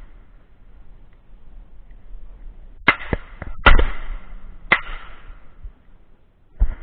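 Shotgun shots: a quick cluster of about four shots in under two seconds, starting about three seconds in, the third the loudest, with fainter distant shots among them.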